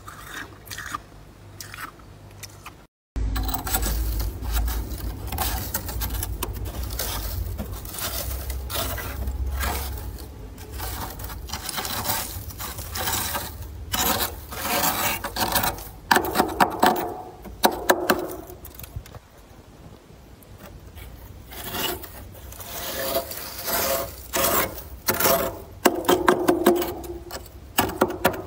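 Thick freezer frost being scraped off the freezer's inner wall with a hand-held scraper: repeated rasping strokes, louder from about three seconds in after a brief dropout.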